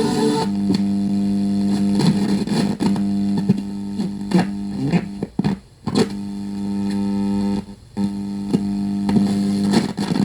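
Sony CFS-1110S cassette radio's speaker giving a steady hum with crackling clicks. The sound cuts out briefly twice, about five and a half and eight seconds in.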